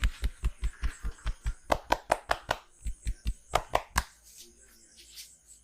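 Massage percussion: hands striking a person's body in a fast, even rhythm of about five blows a second, a dull thump with each. The blows turn sharper, like slaps, partway through, and stop about four seconds in.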